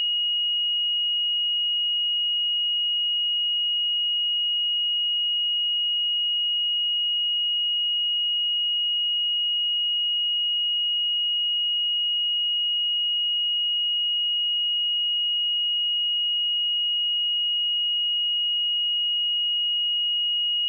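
A pure 2885 Hz sine-wave test tone, held steady at one pitch and level, for checking speakers or headphones.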